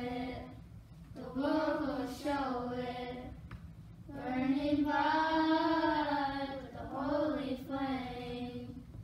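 A group of children singing a hymn together unaccompanied, in phrases, with a long held line in the middle and short breaths between phrases.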